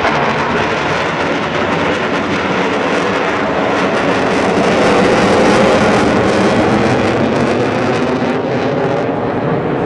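Military fighter jet making a display pass overhead: a loud, steady rush of jet-engine noise that swells slightly about halfway through.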